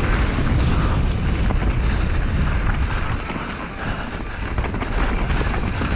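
Wind buffeting the microphone of a downhill mountain bike at speed, over a heavy rumble with scattered rattling knocks from the bike on rough ground.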